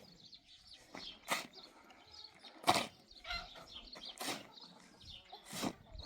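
Sharp knocks or strokes repeating at an even pace, about one every second and a half, with faint bird chirps between them.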